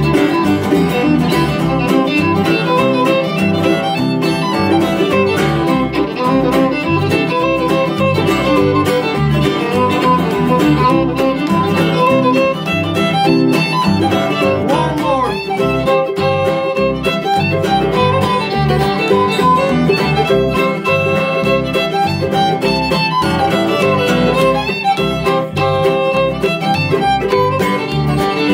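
Bluegrass string band playing an instrumental passage: a fiddle carries the lead over acoustic guitar, with a steady, pulsing bass underneath.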